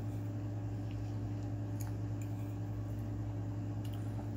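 Steady low electrical hum, with a few faint clicks and scrapes of a metal fork against a plate as food is scooped up.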